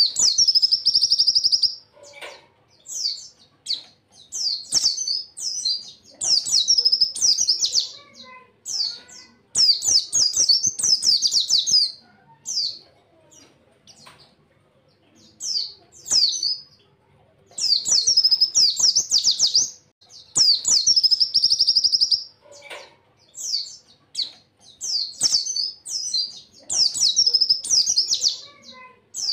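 A white-eye (pleci) singing rapid, high trilled song bursts of one to two seconds each, repeated again and again with short pauses between.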